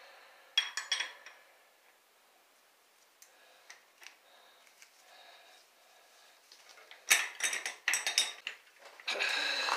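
Metal clinks and scrapes of a wrench working on the axle nuts of a bicycle's rear wheel hub, which is being opened up to regrease bearings that feel dry. A short burst of clinks comes about half a second in, then a few faint ticks, then a busier run of clinking and a scraping rattle near the end.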